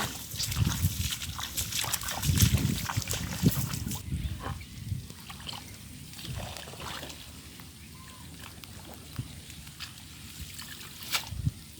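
Water splashing and sloshing, heavier for the first few seconds, then lighter trickling and dripping.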